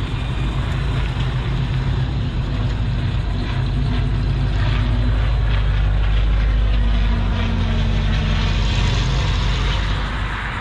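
A car's engine running as the car drives slowly past. It grows louder toward the middle and fades near the end.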